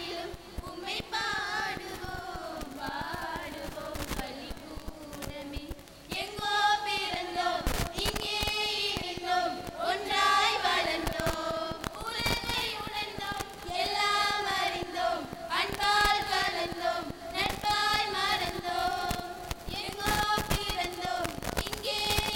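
A group of young women singing a song together in unison into microphones; the singing grows louder about six seconds in.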